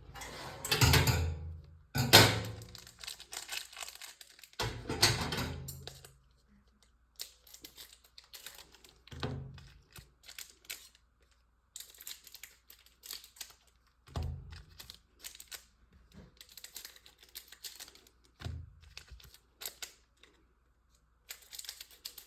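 Sealed trading-card pack wrappers being crinkled and torn open, then cards being shuffled and tapped. The loudest rustling comes in the first few seconds, followed by lighter, scattered rustles and clicks.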